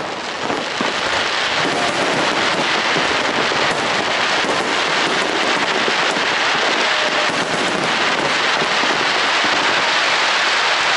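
Aerial fireworks shells bursting in a dense, continuous barrage, a steady wash of bangs and crackling with no single boom standing out.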